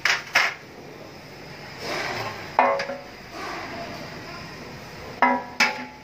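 Sheet-metal transmission parts being handled: a stamped-steel automatic transmission oil strainer and oil pan knocking against a metal drip tray, several sharp clanks, some with a short metallic ring.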